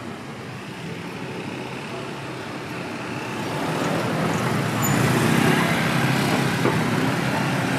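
Street traffic going past, growing louder about four seconds in as a vehicle comes close, with people's voices mixed in.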